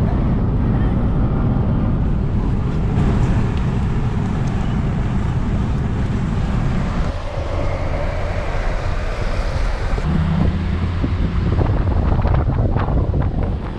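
Wind buffeting the microphone: a loud, fluttering rumble that eases a little about seven seconds in.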